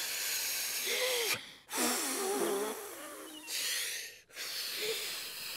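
Cartoon characters blowing hard to push away a cloud: three long, breathy blows, each followed by a brief pause for breath.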